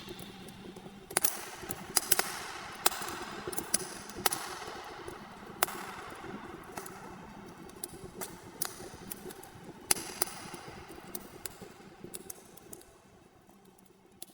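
Wood fire crackling in a clay and stone fireplace: a steady hiss with irregular sharp pops, fading out near the end.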